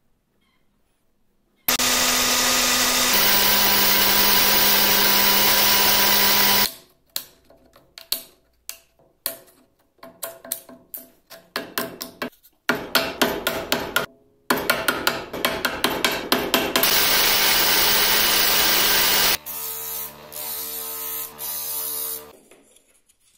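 Woodworking power tools running in bursts. A power tool runs steadily for about five seconds, its hum stepping down in pitch after a second or so as it takes load. Then come quick, irregular strokes or taps, another spell of the power tool, and near the end a quieter motor with a stronger hum, broken by a few clicks.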